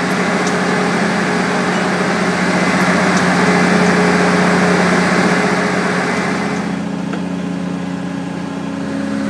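Diesel engine of a fire brigade water transport unit running steadily. A louder rushing noise lies over it for about the first seven seconds and then drops away.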